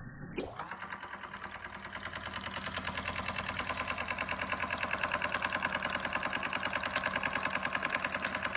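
Georges Carette Model 175 twin oscillating-cylinder toy steam engine running, with a rapid, even chuffing beat that grows louder over the first few seconds and then holds steady.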